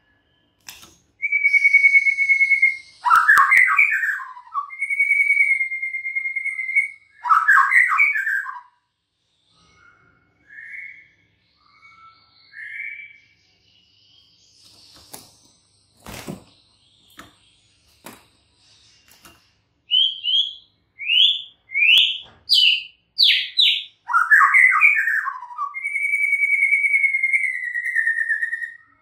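White-rumped shama singing: long, level, clear whistles alternating with fast tumbling phrases, a quieter stretch of short scattered notes midway, then a quick run of rising notes leading into a last long whistle.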